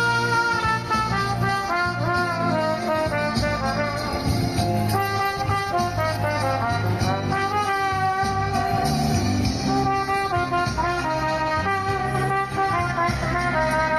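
Trumpet playing a melody, note after note in quick steps, over a steady low accompaniment.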